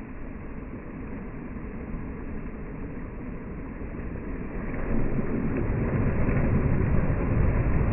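Sea waves: a steady rushing noise that swells and grows louder about five seconds in.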